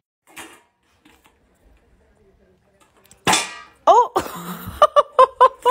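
A dog's squeaky toy squealing in quick, evenly spaced squeaks, about four a second, as two dogs chew and tug on it. These follow a single short, loud, noisy burst about three seconds in.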